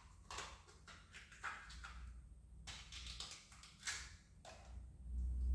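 Short, irregular scraping strokes, one or two a second, from a daikon radish being worked by hand. A low rumble swells near the end.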